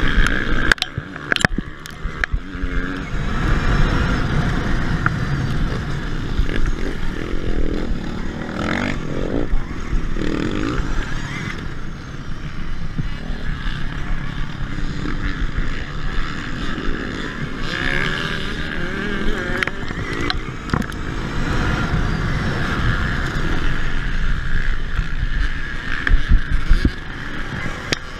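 KTM Freeride-E electric dirt bike ridden hard off-road, its motor whining steadily under heavy wind rumble, among the engines of petrol dirt bikes racing close by. Sharp knocks from the bike hitting bumps, strongest about a second in and near the end.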